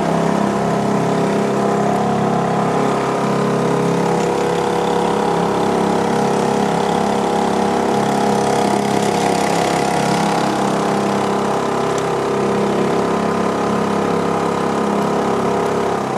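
Small outboard motor on a canoe running steadily at about a third throttle.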